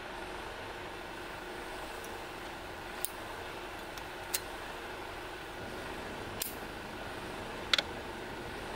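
Small camp stove being lit: a few sharp ignition clicks, the loudest a quick double click shortly before the burner catches, over a steady low hiss.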